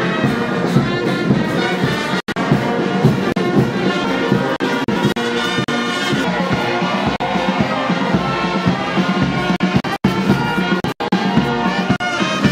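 Brass band music playing steadily, with a few very brief dropouts in the sound.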